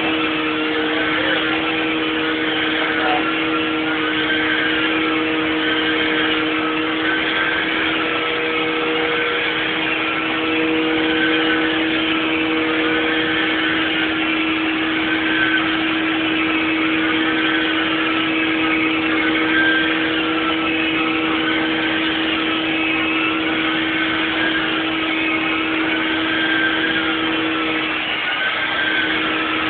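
Carpet-cleaning machine running steadily: a constant hum with a higher whine above it that rises and falls about every two seconds, and the hum dips briefly near the end.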